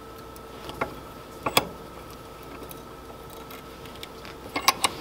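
Small metal clicks and clinks from handling a small bench vise while clamping a feeler-gauge blade in it: two single clicks in the first couple of seconds, then three quick ones near the end.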